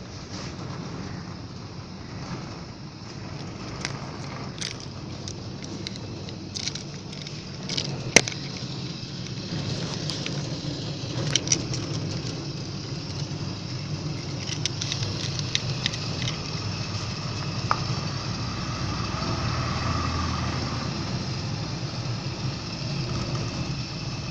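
Single-phase AC sliding-gate motor running, driving the gate along its toothed rack: a steady low hum with scattered clicks and rattles, the sharpest about eight seconds in.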